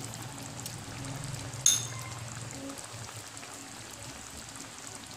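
Coconut-milk broth with vegetables simmering in a metal wok, a soft steady bubbling, with a single brief clink about a second and a half in.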